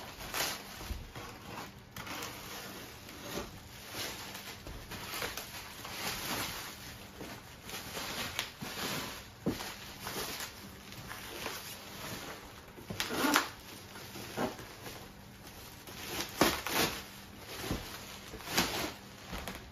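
A parcel being unwrapped by hand: plastic wrap crinkling and packing tape ripping, as an irregular run of rustles with a few sharper rips, the loudest about 13 seconds in.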